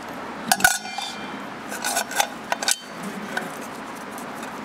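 Metal clinking and scraping as the round metal fluid reservoir can of a Rolls-Royce Silver Cloud III power steering pump is fitted over the pump body. There are two ringing clinks about half a second in and a cluster of clinks around two seconds in.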